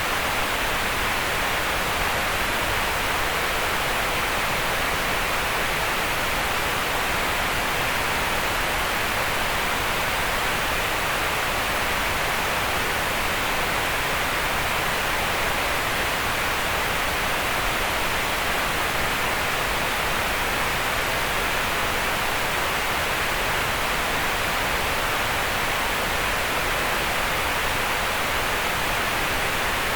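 Green noise: a steady, unchanging hiss concentrated in the midrange, between about 500 Hz and 4 kHz, with weaker lows and highs.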